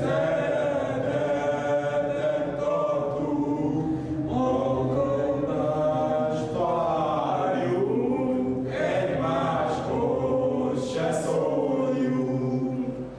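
A group of men singing a song together in chorus, several voices holding long notes.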